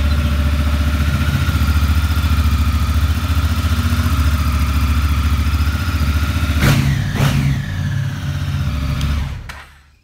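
Honda CRF1000L Africa Twin's parallel-twin engine idling steadily just after a start-up. The note rises briefly about seven seconds in. The engine is switched off and dies away about nine and a half seconds in.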